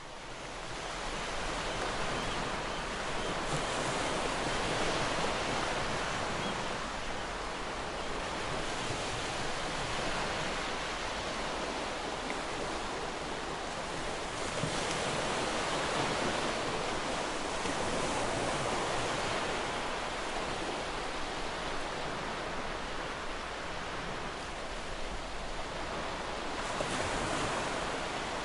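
Ocean surf: a steady rush of waves breaking and washing that swells and eases every few seconds, fading in over the first second.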